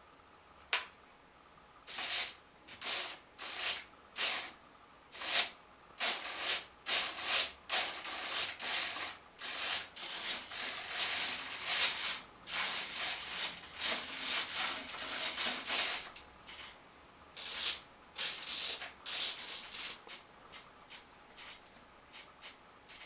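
Servos of an RC model MiG-29 jet driving its twin rudders and tailplanes through full throws: a series of short whirring buzzes, each a fraction of a second long, packed close together through the middle and sparser near the end.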